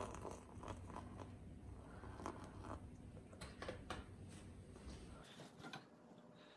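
Faint scrapes and light clinks of a metal milk jug against a ceramic mug as frothed milk is poured into coffee, a few irregular ticks over several seconds.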